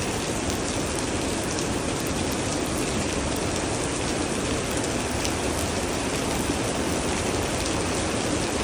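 Steady rain falling and splashing on surfaces, an even hiss with a few faint drop taps.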